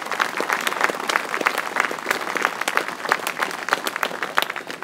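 Crowd applauding: many hands clapping in a dense patter that begins to thin out near the end.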